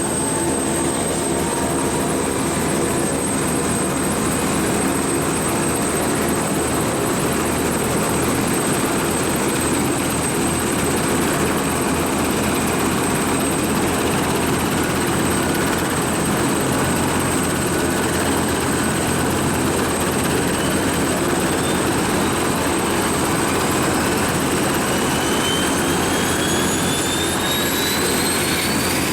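Bell 412 helicopter's turbine engines running during start-up on the ground: a steady high turbine whine over a loud rush and low hum. Over the last few seconds a second whine rises steadily in pitch as another turbine spools up.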